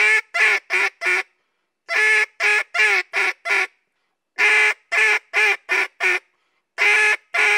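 Duck call blown in repeated five-note greeting calls. Each series opens with a long drawn-out quack and is followed by four shorter, quicker quacks, with a short pause before the next series.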